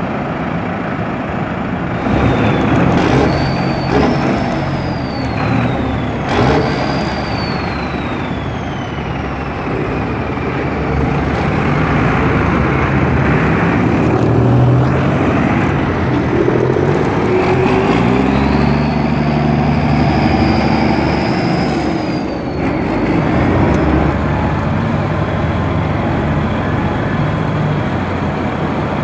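Diesel farm tractor engines running as a convoy drives past, with the rumble of many engines at once. Partway through, one engine revs up, and a high whistle rises and falls away twice.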